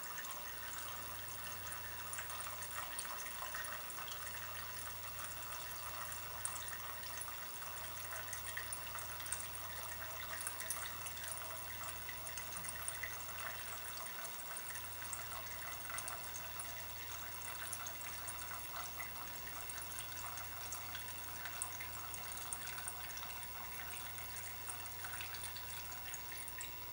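Petrol trickling in a thin, steady stream through a Dellorto carburettor jet into a measuring cylinder of fuel, gravity-fed from an upturned plastic bottle during a timed flow test of the jet. A faint low hum lies beneath.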